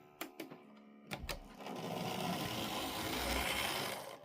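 Lima 94XX model locomotive running on the track, its small electric motor whirring steadily, after a few sharp clicks in the first second or so.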